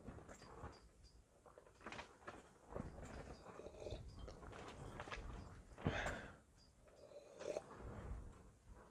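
Faint clicks, knocks and rustles of small objects being handled, with a louder scrape about six seconds in.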